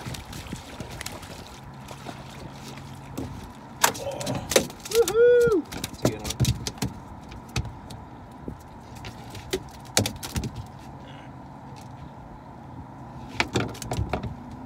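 Scattered knocks and thumps on a fishing boat's deck as a freshly landed American shad is handled. A short pitched squeak that rises and falls comes about five seconds in and is the loudest moment.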